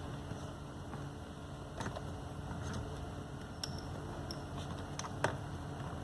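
A few faint, scattered clicks and taps of a plastic trim removal tool prying at BMW 3 Series dashboard trim, the loudest about five seconds in.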